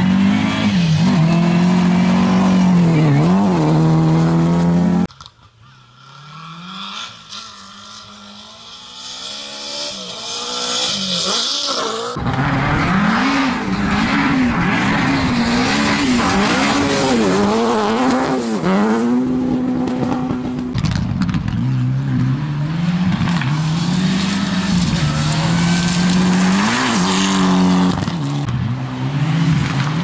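Rally cars at full throttle on a gravel stage, each engine climbing in pitch and dropping back at every gear change as it passes. About five seconds in the sound drops sharply and one car is heard approaching from afar, growing louder until a cut about twelve seconds in, after which close passes resume.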